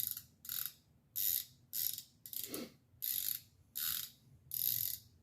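Socket ratchet wrench clicking in quick back-strokes, about eight short bursts in a steady rhythm, as a spark plug is worked out of or into the engine.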